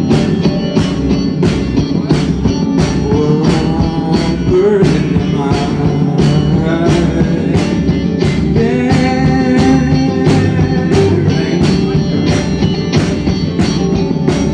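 Live rock band playing: drums strike a steady beat just under twice a second under guitar, and a singer's voice comes in about four seconds in and carries on until shortly before the end.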